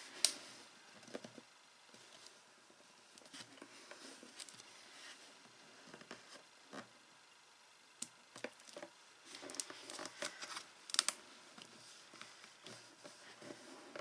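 Faint handling of paper and card while frame pieces are pressed on around a paper box: scattered light taps, rustles and scrapes, sparse at first and busier in the second half.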